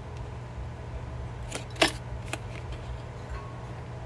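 A few light clicks and taps of a cardboard backing card holding metal enamel pin badges being handled and turned over, the sharpest about two seconds in.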